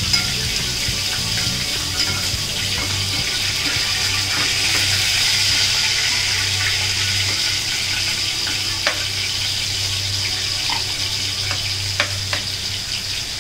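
Prawns sizzling as they fry in oil in a pan on a gas stove, stirred and turned with a spatula. There is a steady sizzle, with a few sharp clicks of the spatula against the pan.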